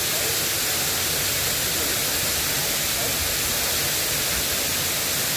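Steady hiss of light rain falling, an even, unbroken noise strongest in the higher range.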